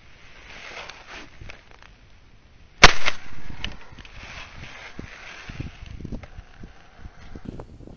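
A single shotgun shot about three seconds in, sharp and very loud, with a short trailing echo. Faint small knocks come before and after it.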